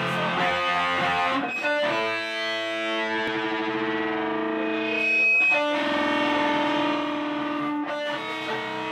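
Rock music led by an electric guitar played through distortion and effects, holding sustained chords that change every two or three seconds.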